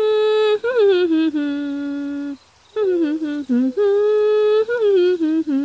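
A character's voice humming a cheerful tune, with held notes and gliding slides between them, pausing briefly about two and a half seconds in before the next phrase.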